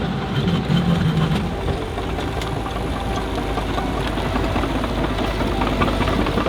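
Skid steer engine running at idle, a steady low-pitched drone with scattered clanking knocks.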